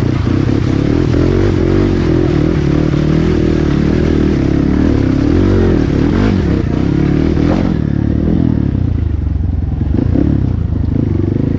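Trail motorcycle engine running as the bike is ridden, its pitch wavering with the throttle, then easing off to a lower, steadier note about eight seconds in.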